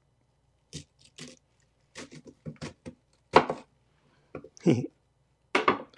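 Food processor with a slicing blade shredding cabbage: a faint low hum under a string of short clatters and knocks as wedges are pushed down the feed chute, the loudest about halfway through.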